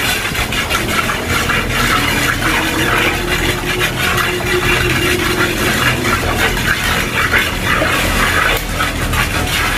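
Hand pestle grinding peanut sauce round a wide earthenware mortar (cobek): a continuous gritty scraping rub made of many quick strokes.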